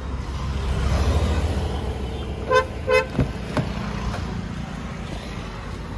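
Two short car-horn toots in quick succession about halfway through, over a steady low road-traffic rumble.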